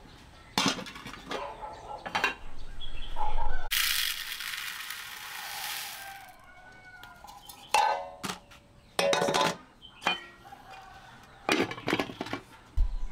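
Chickens clucking, among scattered clinks and knocks, with a rushing hiss lasting about two seconds a few seconds in.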